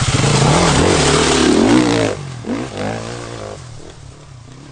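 2017 Sherco 450 SEF-R four-stroke single-cylinder dirt bike engine revving hard, its pitch rising and falling for about two seconds. The throttle then closes, a couple of short blips follow, and the engine fades as the bike rides off.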